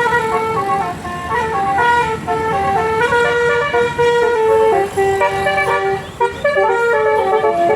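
Bus telolet horn of the 'basuri' kind, a multi-note musical air horn, playing a quick tune: clear steady notes stepping up and down one after another, with only brief breaks.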